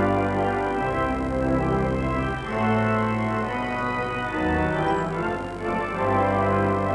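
Church organ playing the recessional in held chords over a deep bass line, the chords changing every second or so.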